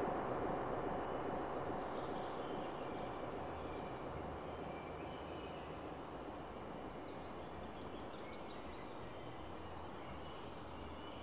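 Synthesized drone from a Pure Data Automatonism patch: a noisy, wind-like wash with faint gliding high tones and a low throbbing hum, gradually getting quieter.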